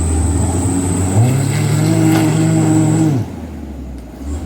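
Heavily loaded Mitsubishi Canter truck's diesel engine labouring in mud: it revs up about a second in, holds high revs, then drops back about three seconds in.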